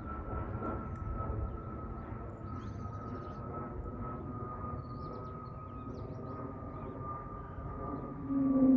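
Aircraft noise: a steady low rumble with a thin high whine that slowly sinks in pitch. Near the end a loud, low, steady droning tone suddenly sets in, the odd noise the plane makes.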